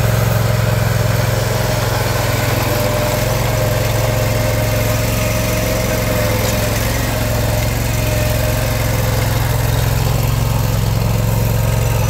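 Vermeer SPX25 vibratory plow's engine idling steadily, a deep even hum, with a faint higher steady tone coming and going in the middle.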